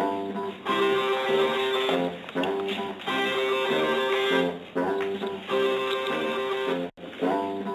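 Guitar music: plucked and strummed chords in short repeating phrases, with a sudden brief break about seven seconds in.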